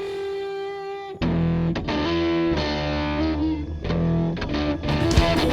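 Music led by a distorted electric guitar: a single held note, then low notes and fuller backing come in suddenly about a second in.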